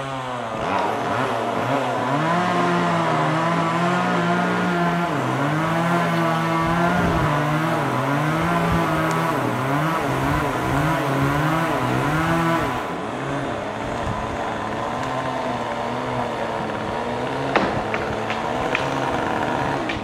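Two-stroke chainsaw running hard and cutting wood, its pitch rising and falling with the load for about ten seconds, then running more evenly at lower load. A few sharp knocks near the end.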